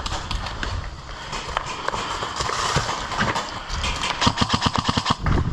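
Rustling and quick footsteps of a player on the move, then a rapid burst of airsoft rifle fire on full auto about four seconds in.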